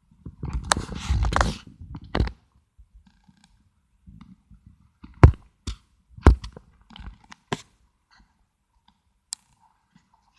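Handling noise close to the microphone: a rustle lasting about two seconds, then a string of sharp clicks and knocks, the loudest a little past five and six seconds in.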